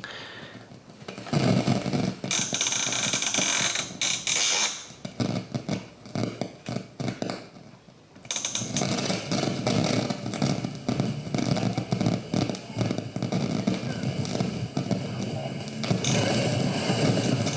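Pioneer Rondo 3000 receiver's radio putting out static: crackling hiss and interference rather than a clear station, in two long stretches, the first starting about a second in and the second from about eight seconds in. The owner puts the noise down to an inverter.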